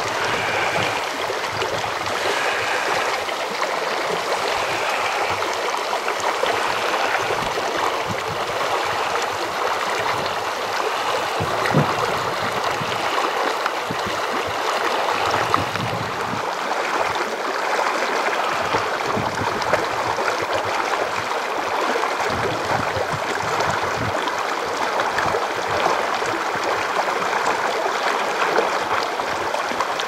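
Mountain stream rushing steadily.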